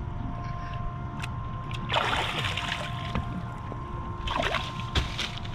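A hand splashing and sloshing in the sea at the boat's side, twice, about two seconds in and again near the end, over the steady low hum of the idling boat.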